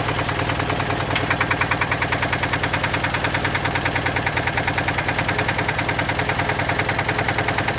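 Citroën 2CV's air-cooled flat-twin engine idling with an even, rapid pulse. About a second in there is a sharp click, and a higher-pitched ticking then runs along with the idle.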